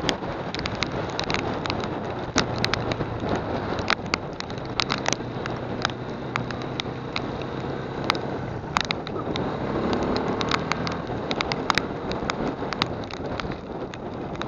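Small motorcycle running at road speed in heavy rain, under a rush of wind and rain noise, with many sharp ticks of raindrops striking the microphone. The engine pitch rises briefly about ten seconds in as it revs up.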